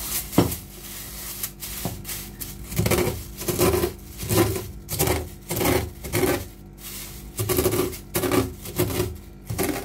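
Cornflakes being crushed inside a plastic bag with the bottom of a drinking glass: repeated crunches with plastic crinkling, in an uneven rhythm of about one to two a second.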